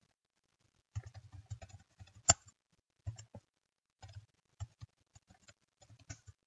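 Computer keyboard keys typed in quick runs of clicks, with one louder keystroke a little over two seconds in: a password being typed, then typed again to confirm.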